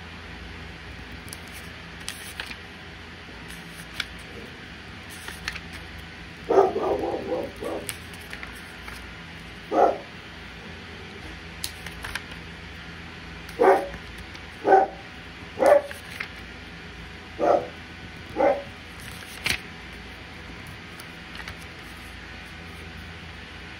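A dog barking: a quick run of barks about six seconds in, then single barks spaced a second or more apart, over a steady low hum.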